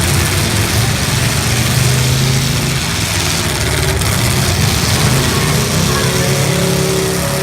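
Engines of full-size demolition derby cars running and revving together, with a dense wash of noise over them; the pitch shifts as they rev, most clearly near the end.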